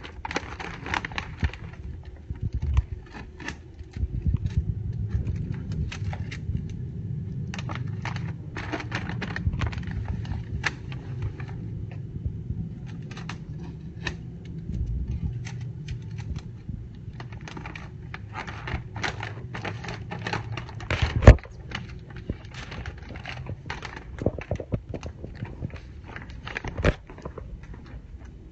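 Plastic Priority Mail poly mailer crinkling and crackling as it is sealed and handled, with scattered rustles throughout. One loud knock comes about three-quarters of the way through.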